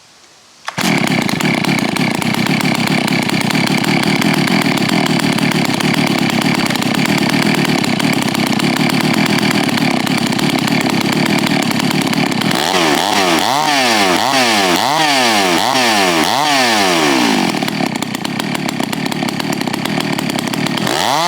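Stihl MS660 two-stroke chainsaw running at high revs in a Norwood PortaMill chainsaw mill, ripping a slab lengthwise off a log. It comes in abruptly about a second in and runs steadily. Past the middle, the engine speed rises and falls about once a second for several seconds, then settles again.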